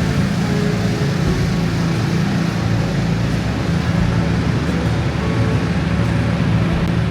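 Steady low rumble and road noise of a moving vehicle.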